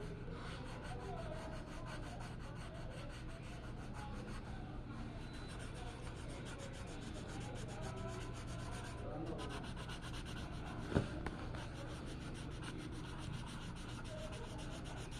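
An art tool rubbing and scratching steadily across a drawing surface, with a low steady hum underneath and one sharp click about eleven seconds in.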